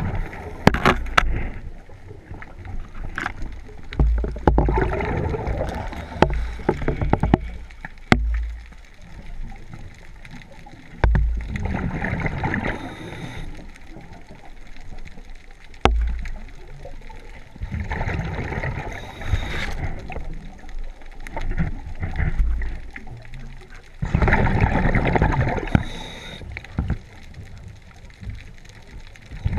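Scuba regulator breathing heard underwater: a gurgling rush of exhaled bubbles every several seconds, with quieter stretches between. A few sharp clicks near the start.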